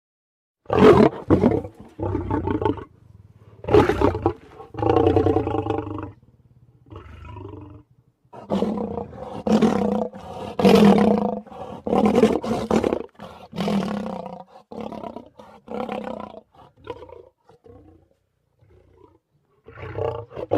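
Lion-style roars and growls used as sound effects for a big-cat character: a string of separate calls, each a second or two long, with short silences between them.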